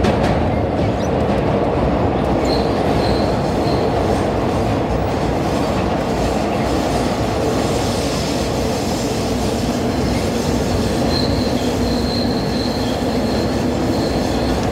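Vintage IND R1-9 subway car running at speed through a tunnel, heard from inside the front car: a steady, loud running noise of wheels and motors, with a thin high wheel squeal coming in briefly about two seconds in and again for the last few seconds.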